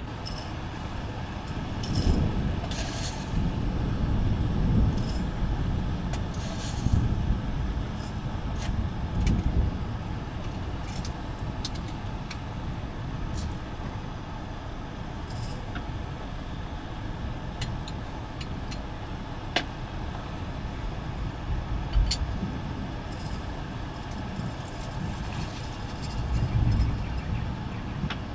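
Heavy rain: a low, uneven rumble that swells and eases, with scattered sharp drips and clinks.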